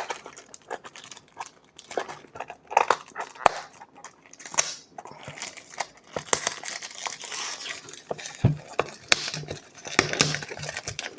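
Packaging crinkling and tearing as a perfume box is unwrapped, with irregular crackles and sharp clicks.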